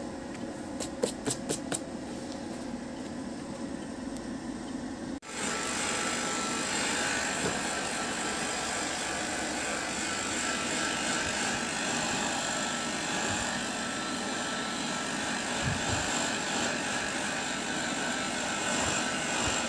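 A few light clicks of a glue brush against its pot. Then, after an abrupt cut, the steady running of a workshop machine's electric motor, a constant hiss with a faint whine.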